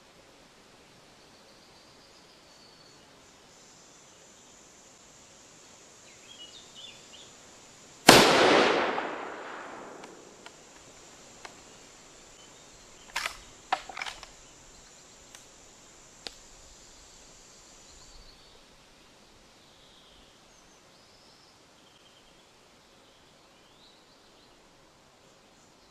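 A single rifle shot from a Winchester M1895 lever-action rifle in 7.62x54R, firing a handloaded cartridge, about eight seconds in; its echo dies away over about two seconds. Several sharp clicks follow some five to eight seconds later.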